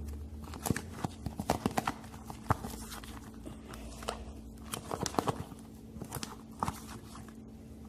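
Thickening homemade slime being stirred in its pot with a spoon: irregular sticky clicks and squelches as it starts to pull away from the sides.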